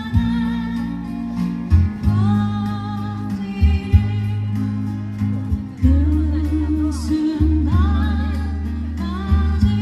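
A live singer performing a Korean ballad, with guitar accompaniment and sustained low bass notes underneath.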